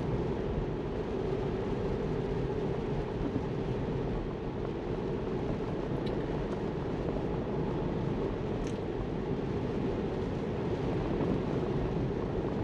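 Steady tyre and road noise from a Tesla driving on wet pavement, heard from inside the cabin.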